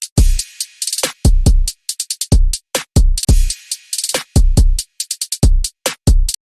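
Electronic drum-machine beat: deep kick-drum hits with crisp hi-hat and cymbal-like hits between them, cutting off abruptly near the end.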